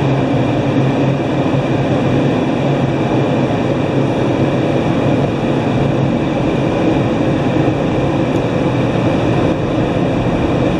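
Laserwash G5 MaxAir overhead dryer blowers running, a loud, even rush of air with a low hum, heard from inside the car. This is the dryer the owner says does nothing but make noise, barely moving the water droplets on the car.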